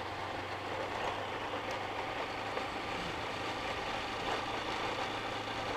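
Small motorcycle engine running steadily at low speed, a constant low hum, with tyre and road noise from riding over cobblestones.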